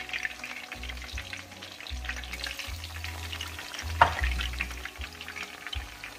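Battered sweet potato slices deep-frying in hot oil: a steady crackling sizzle, with one sharp pop about four seconds in.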